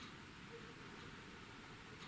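Near silence: faint, steady hiss of room tone in an empty room, with nothing distinct happening.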